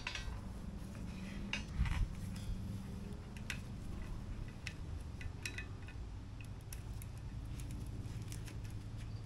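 Light metallic clinks and taps of tools and steel suspension parts being handled and fitted, with a stronger knock about 2 s in, over a steady low hum.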